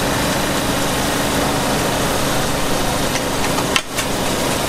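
Steady drone of a small engine running, with a click and a brief drop-out about four seconds in.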